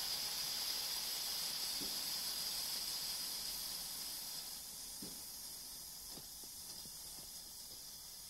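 Hot aluminum ingot melting into a block of ice, the ice and meltwater hissing as they flash to steam. The hiss slowly fades, with a few faint cracks.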